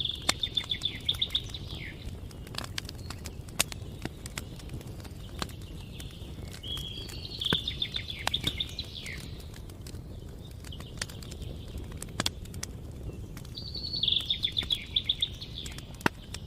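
A small songbird sings a short trilled phrase three times, about seven seconds apart, each phrase ending in a falling slur. Underneath, a campfire crackles with scattered sharp pops over a steady low rumble.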